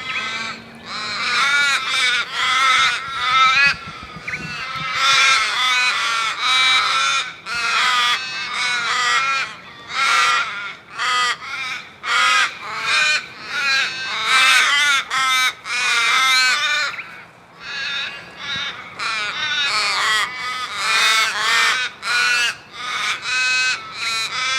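A flock of crows cawing, many harsh caws following and overlapping one another with hardly a pause.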